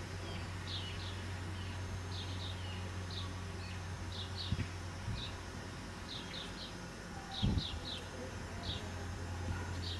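Small songbirds chirping repeatedly in short high notes, over a steady low hum, with a dull low knock about seven and a half seconds in.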